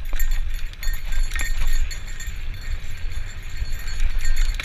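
A bicycle rolling along a trail, heard from a bike-mounted action camera: wind rumbles on the microphone, with scattered clicks and rattles from the bike.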